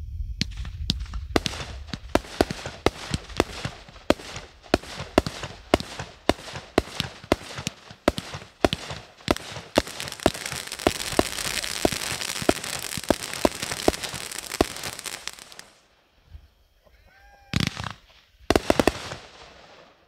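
Winda 'Wings of Fire' 30-shot, 500-gram firework cake firing gold brocade mines and breaks. Sharp bangs come at a steady pace of about two a second, then merge into a continuous crackling rush before dying away. Two last bursts follow near the end.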